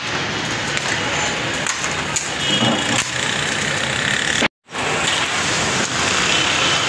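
Hot cooking oil sizzling steadily in a giant steel cooking pot as more oil is poured in. The sound breaks off completely for a moment a little over four seconds in.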